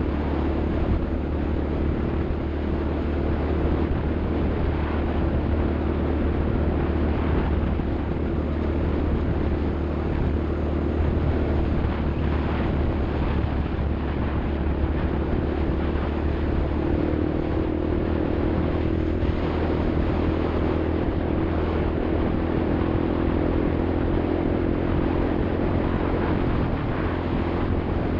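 A vehicle engine running steadily, its tone shifting slightly higher about two-thirds of the way through.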